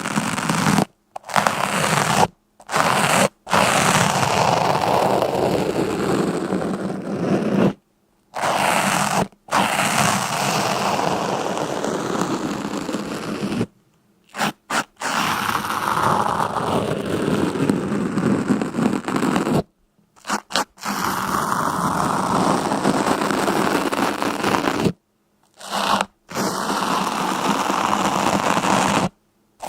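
Scraping, crunching noise in long stretches of a few seconds each, broken by several brief cuts to silence.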